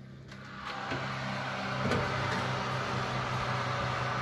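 Electric oven's fan running with a steady hum and whoosh that grows louder about a second in, with a couple of light clicks as a metal cake tin is set on the oven's wire rack.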